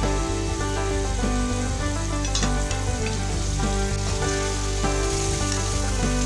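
Aloo palak (potato and spinach curry) sizzling in a metal pan. Partway through, a metal spoon stirs it, with a few sharp clicks of metal on the pan.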